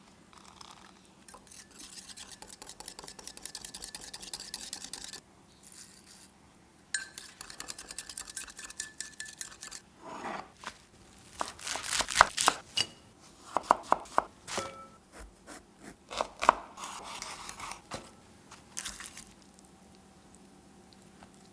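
Kitchen utensils working against bowls and dishes: two long stretches of rapid scraping strokes, then a run of sharp clinks and knocks, a few of them ringing briefly.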